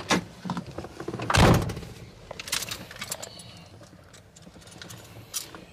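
A pickup truck's cab door shutting with a heavy thunk about a second and a half in, amid lighter clicks and rattles from inside the cab.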